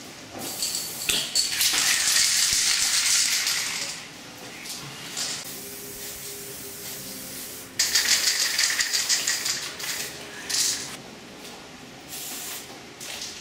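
Aerosol spray-paint cans hissing in bursts: a long spray of about three seconds near the start, another beginning about eight seconds in, and shorter puffs between.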